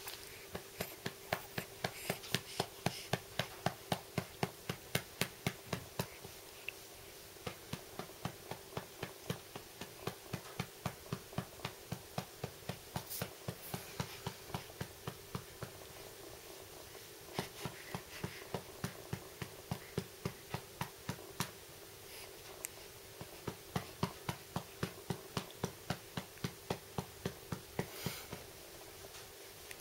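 Steady rhythmic patting on a baby's back to bring up a burp, about three pats a second, with short breaks about 6, 16 and 22 seconds in. A faint steady hum runs underneath.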